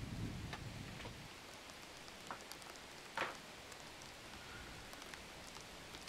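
A few soft taps and clicks of hands on a desk and laptop over a faint steady hiss, the loudest tap about three seconds in. A low rumble fades out within the first second.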